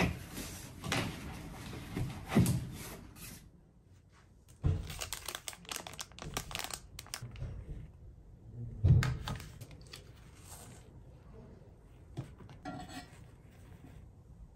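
Close handling sounds: a fabric backpack rustling and knocking as it is hung on wall hooks, then, after a short lull, clicks and rustles of a TV remote and small items handled on a bedside table, a louder thunk about nine seconds in, and a tissue rustling out of its box near the end.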